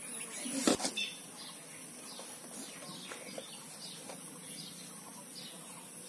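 Small birds chirping again and again, short quick notes over a steady high hiss. A single sharp knock stands out less than a second in.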